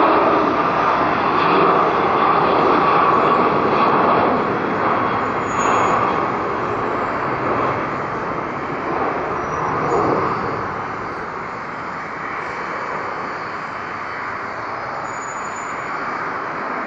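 Boeing 777-200ER's twin Rolls-Royce Trent 800 turbofans at takeoff thrust during the initial climb-out. The steady jet noise slowly fades as the aircraft climbs away.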